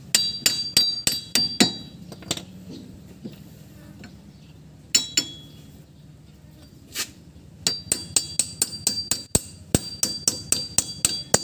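A hammer striking steel at a car's front wheel hub, each blow ringing: a quick run of about six blows at the start, a few single blows, then steady hammering at about four blows a second near the end. The hammering is to knock the drive shaft loose from the hub.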